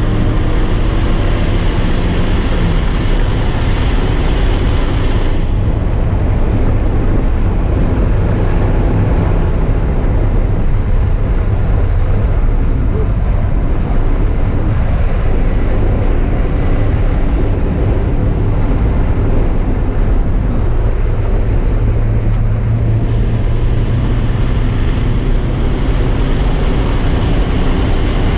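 Porsche 944's four-cylinder engine running hard at speed, its pitch rising and falling as the car works through the gears, over heavy wind and road noise.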